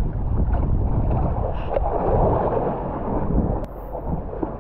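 Wind buffeting the camera microphone: a rough, steady rumble with no pitch, easing slightly after about three and a half seconds, with one sharp click.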